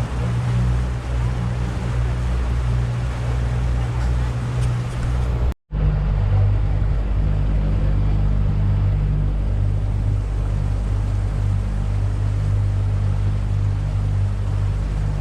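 Boat motor running steadily as the boat moves across the lake, its low hum mixed with the rush of water and wind. The sound cuts out briefly about five and a half seconds in, then the engine hum resumes at a slightly different pitch.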